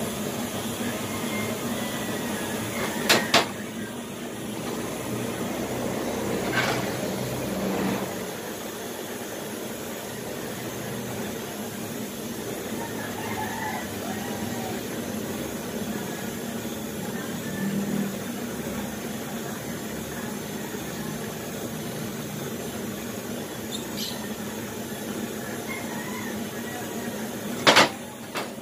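Gas torch flame hissing steadily while heating a motorcycle brake shoe during relining. Two sharp metallic clinks cut through, about 3 seconds in and again near the end.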